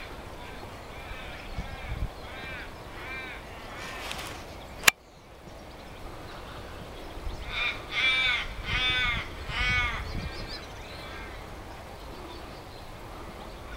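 A crow cawing in two runs of repeated caws, the second run of about five caws louder than the first. There is a single sharp click about five seconds in.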